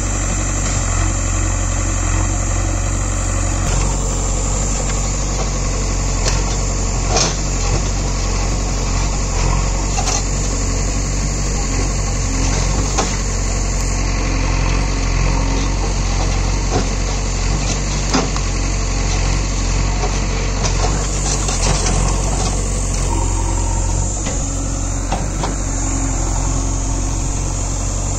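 JCB 3DX backhoe loader's diesel engine running steadily while the backhoe arm digs, with a few sharp knocks and clunks now and then.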